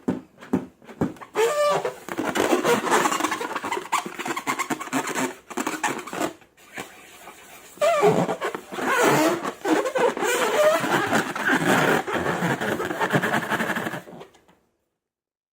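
Slime and long rubber balloons being squeezed and handled: irregular squelching with short rubbery squeaks, stopping abruptly about fourteen seconds in.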